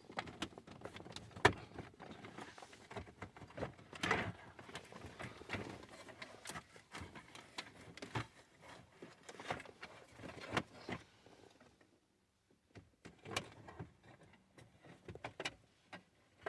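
Scattered clicks, knocks and rustling as plastic dash-kit trim is handled and pushed against the dashboard, with one sharp click about a second and a half in and a brief pause near the end of the middle. The piece is not clipping into place.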